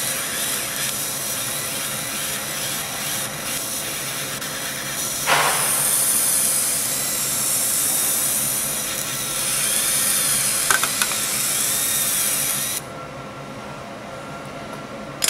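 CO2 laser cutting machine cutting thin brass sheet: a steady hiss, with a faint whine that rises and falls in pitch as the cutting head traces curves. About 13 seconds in the hiss cuts off and a quieter steady hum remains as the cut ends.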